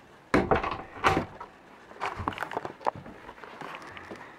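Knocks and bumps in a small wooden yacht cabin as someone moves through it: two sharp thumps about half a second and a second in, then lighter scattered knocks.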